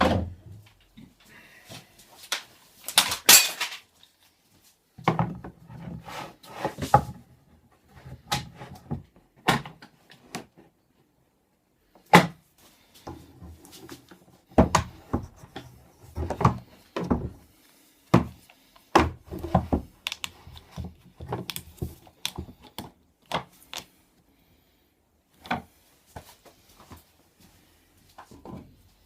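Irregular knocks, thunks and short scrapes of wood and tools being handled on a workbench, with quiet gaps between them.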